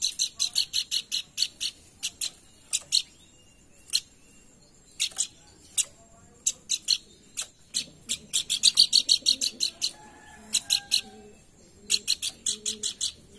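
Pelanduk bukit song: runs of short, sharp, high chipping notes, about five or six a second, in bursts broken by short pauses.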